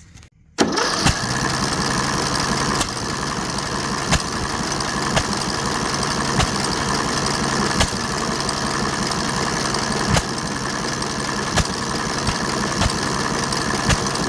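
Briggs & Stratton 18 HP lawn-tractor engine being cranked over by its electric starter, a steady whirring with a sharp knock about every second; it does not catch, as the engine still won't start.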